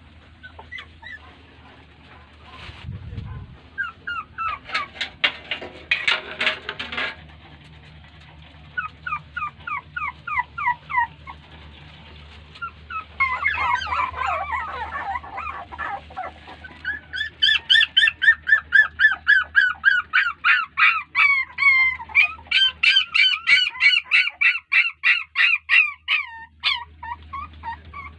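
Young puppy crying: short, high-pitched, falling yelps and whines, in scattered runs at first and then a fast, almost nonstop string in the second half. The puppy is crying for its mother, who is not letting it nurse.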